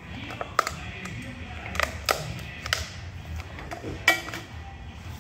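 Sharp metallic clicks and clatter as test-lead clips are handled and clipped onto the DC motor's terminal leads, half a dozen irregular clicks with the loudest about four seconds in.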